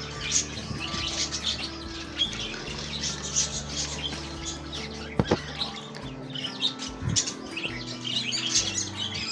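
Small birds chirping again and again over soft background music of held low notes; one sharp click about five seconds in.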